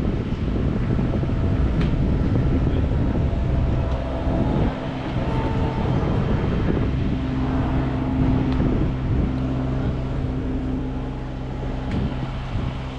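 Wind buffeting the microphone, with a steady low mechanical hum like a running engine that becomes clearer about five seconds in.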